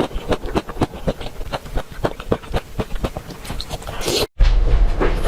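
Close-miked chewing and biting of food: a quick, irregular run of wet clicks and crunches. It cuts off suddenly about four seconds in, and a low rumbling background takes over near the end.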